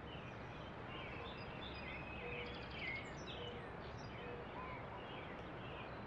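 Outdoor park ambience: small birds chirping and twittering again and again over a steady low background rumble.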